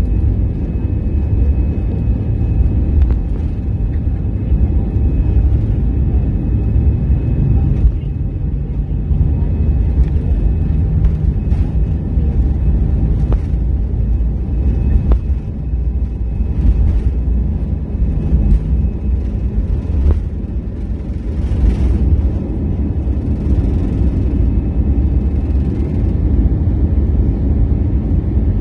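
Cabin noise of an Airbus A320-216's CFM56 engines at take-off thrust: a loud, steady rumble with a thin fan whine over it, and scattered knocks from the wheels on the runway during the take-off roll. The aircraft lifts off about 21 seconds in, and the knocks stop.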